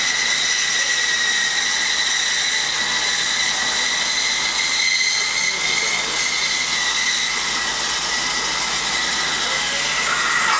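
Diamond wire saw cutting copper melting-furnace residue: a steady, high-pitched whine over a hiss.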